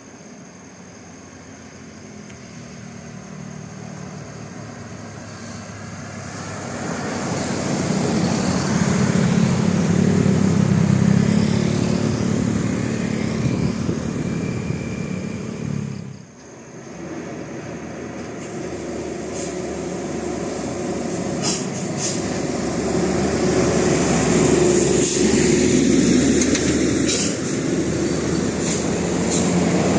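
Buses passing on a road, their engine noise swelling to a peak, dropping sharply about halfway through, then building again as another comes up.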